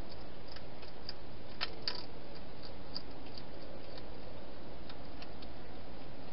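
Wild hedgehog eating at the bowls inside a plastic feeding box: irregular small clicks and crunches of chewing, two louder ones a little under two seconds in, over a steady hiss.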